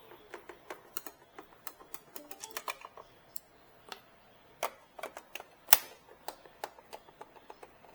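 Irregular sharp clicks and taps from a screwdriver and the plastic casing of an Epson L120 inkjet printer as its side screws are undone. A few clicks come each second, with one louder knock near the middle.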